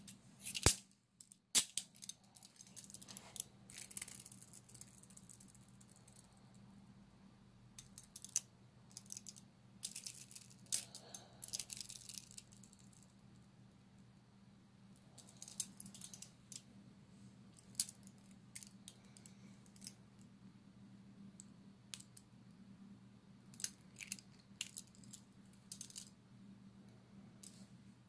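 TCH 822 steel chain-link handcuffs being handled: metallic clicks, rattles and jingles of the cuffs, their small key and the chain links, in short bursts with pauses between.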